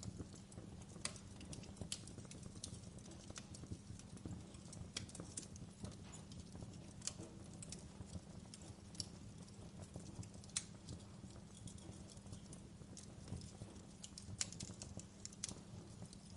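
Campfire burning, with irregular sharp crackles and pops of burning wood over a low, steady rumble of the flames.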